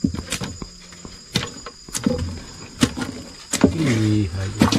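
A freshly caught giant freshwater prawn flicking its tail on the boat floor, giving about six sharp knocks and rattles, over a steady high insect whine. A low hum rises and holds near the end.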